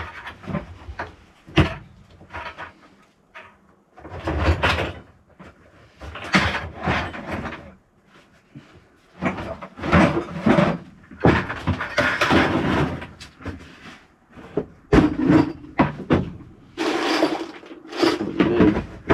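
Plumbing fittings rattling and knocking together as someone rummages through a supply of parts looking for 90-degree elbows: irregular clatters and knocks.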